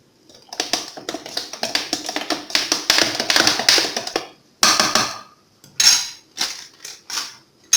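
A spoon stirring a thick marinade in a container, clinking and scraping against the sides for a few seconds, then about seven separate taps and knocks.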